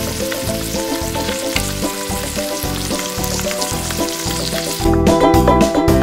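Beef rump searing in hot olive oil in an electric pressure cooker's pot, a steady sizzle as it browns. Background music plays under it and comes up louder about five seconds in.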